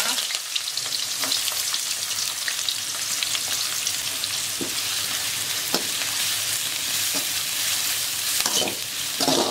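Sliced onions and green chillies sizzling steadily in hot oil in an aluminium kadai, with a perforated steel ladle stirring them and clicking against the pan here and there.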